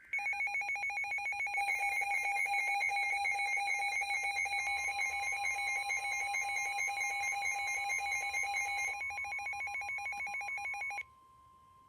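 Emergency alert tones for a Special Marine Warning: a loud, rapid electronic beeping alarm at two pitches. About a third of the way in, a steady single weather-radio warning tone joins it. The beeping cuts off shortly before the end, leaving the steady tone sounding alone.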